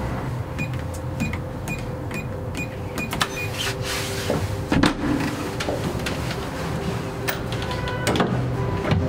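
Door-entry keypad beeping once for each key press, about eight short beeps at a steady pace, followed about five seconds in by a loud clunk as the lock releases and the door is pulled open, then a few more clicks from the door.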